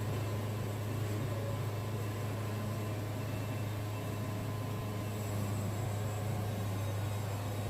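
Wood-Mizer band sawmill running steadily, with an even low hum and noise that do not change.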